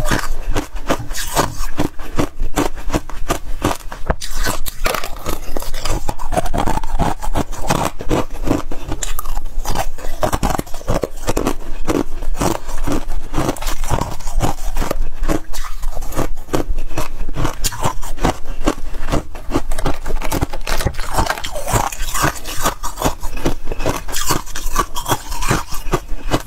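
Freezer frost being bitten and chewed: a dense, unbroken run of crunches and scrapes.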